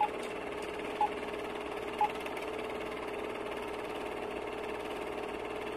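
Film-projector sound effect: a steady whirring rattle, with three short beeps a second apart near the start marking the countdown leader.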